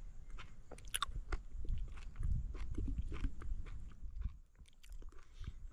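A man chewing a raw witchetty grub, his mouth close to the microphone: a run of small clicks and crunches that eases off after about four seconds.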